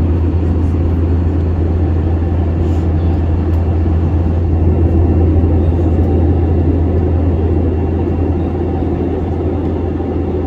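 Steady cabin noise of a jet airliner in cruise, heard from inside at a window seat: a loud, even low drone of the turbofan engines and rushing air.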